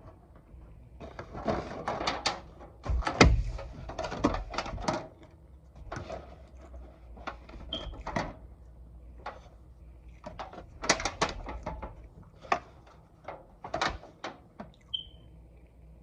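Close-miked eating sounds: chewing and mouth clicks in irregular bursts of sharp crackles.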